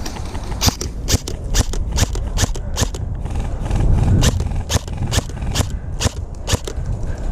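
Footsteps of a person walking at a steady pace, about two steps a second, over a low rumble.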